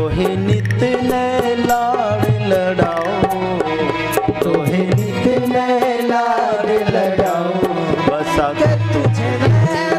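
Devotional bhajan music: a melody over a steady tabla rhythm.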